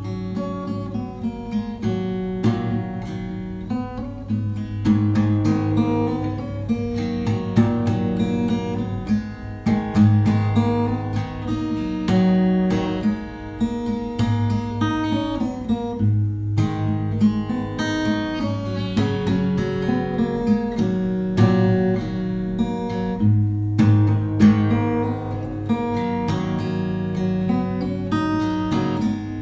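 Background music: an acoustic guitar, plucked and strummed, over a moving low line of notes.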